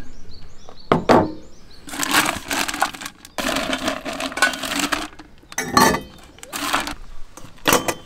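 A plastic zip-top bag crinkling and rustling as it is handled, with several sharp knocks and clinks of ice cubes and stainless steel cups.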